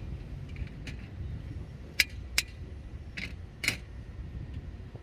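Steady low wind rumble on the microphone, with four sharp clicks between about two and four seconds in.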